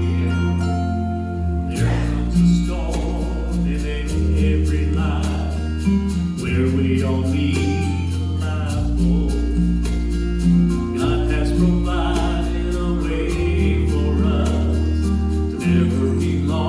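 Gospel quartet song's opening: guitar and a bass line changing note every couple of seconds, with singing coming in about two seconds in.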